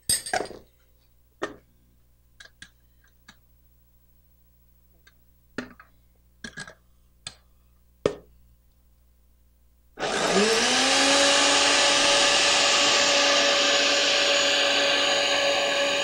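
A few light clicks and taps, then about ten seconds in a countertop blender switches on: its motor winds up and runs steadily at high speed, grinding soaked soybeans with pine nuts.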